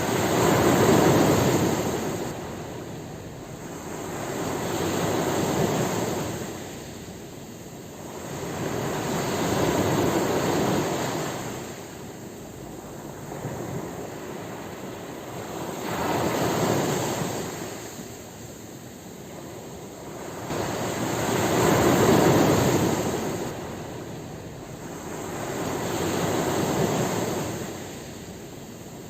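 Ocean waves breaking and washing up the shore in slow surges, each swelling and fading again every four to six seconds.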